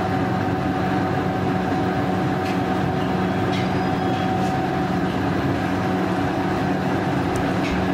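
Gas stove burner running under a covered pan of simmering fish curry: a steady rushing noise with a constant low hum, and a few faint pops.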